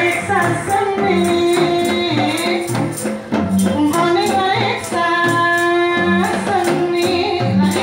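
Live Javanese reog ensemble music: a woman singing through a microphone, holding long notes over hand-held drums beaten in a steady rhythm.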